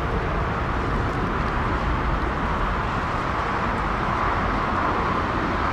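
Twin-engine widebody jet airliner passing and moving away, its engines giving a steady, even roar with a low rumble beneath.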